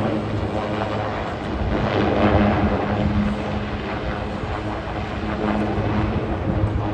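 Super Puma/Cougar twin-turbine helicopter flying a display, its rotor and turbine noise running with a steady low hum and swelling about two seconds in.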